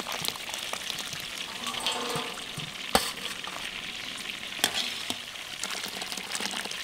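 Chicken frying in hot oil in a wok, a steady crackling sizzle. Two sharp clicks come through about three seconds in and again a second and a half later.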